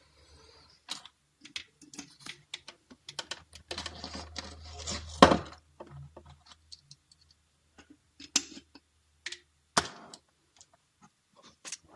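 Irregular small clicks and taps of hand tools and small parts being handled while a third-generation iPod nano is taken apart for a battery replacement. The clicks come thickest in the middle, with a sharp click about five seconds in and another about ten seconds in.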